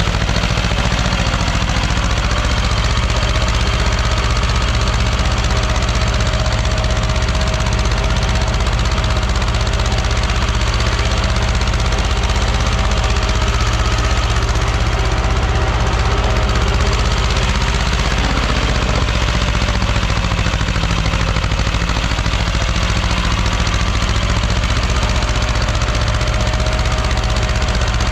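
Small two-cylinder diesel tractor engine running steadily under load, pulling a mounted plough through the soil.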